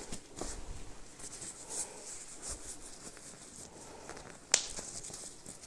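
Snap buttons on a cloth diaper being pressed shut by hand, with soft rustling of the fabric; one sharp snap click about four and a half seconds in is the loudest.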